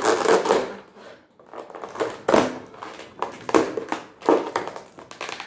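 Cardboard scraping and rustling as a round lidded container is worked up out of the tight slot in its cardboard box, with several short scrapes and knocks.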